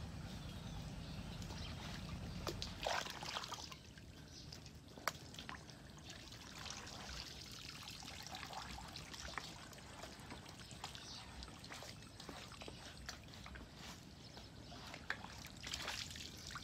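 Water trickling and splashing in irregular bursts, strongest about three seconds in and again near the end, with small clicks and knocks in between.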